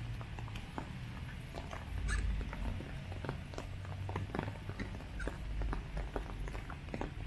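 Raindrops tapping irregularly on an umbrella overhead, many small scattered clicks, over a low steady rumble.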